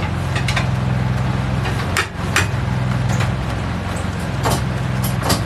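An engine running steadily with a low hum that dips briefly about two seconds in, under scattered clicks and knocks.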